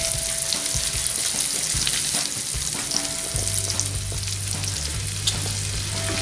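Diced bacon, onions, butter and garlic sizzling and crackling in a hot cast-iron frying pan over charcoal.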